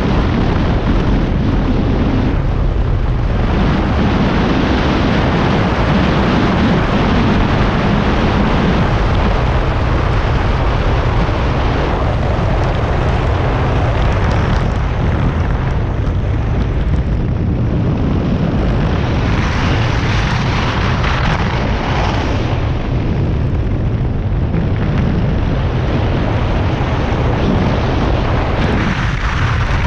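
Wind rumbling hard on the microphone at high skiing speed, with the steady hiss and scrape of race skis running on groomed snow. The scraping brightens for a few seconds about twenty seconds in.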